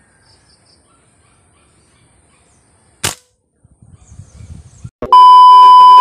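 A single sharp crack about three seconds in, then a loud, steady test-tone beep from about five seconds in that lasts about a second and cuts off suddenly: the colour-bar 'no signal' sound effect used as an editing transition.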